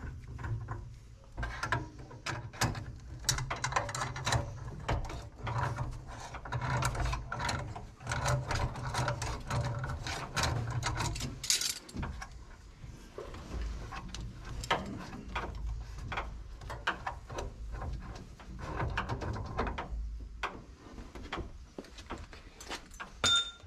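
Hand tools clicking, knocking and scraping on the metal fittings of a gas water heater's control valve, a rapid, irregular run of clicks that thins out in the second half. A short squeak comes near the end.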